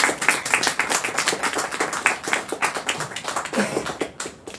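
A small audience applauding: many people clapping in dense, uneven claps that thin out near the end.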